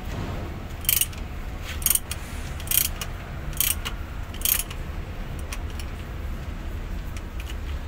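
Ratchet wrench clicking in five short bursts about a second apart, then a few fainter clicks, as bolts at a truck transmission's output yoke are worked.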